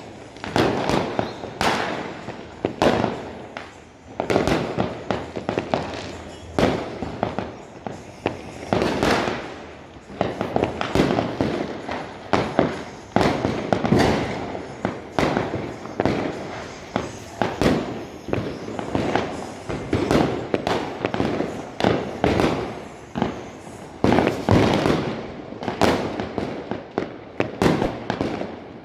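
Fireworks going off nonstop: rockets and aerial shells bursting, along with firecrackers, in a dense run of bangs one after another with no let-up.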